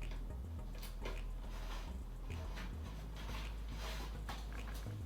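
Irregular soft rustles and light clicks from hands handling cables and parts while plugging in a fan lead, over a low steady hum.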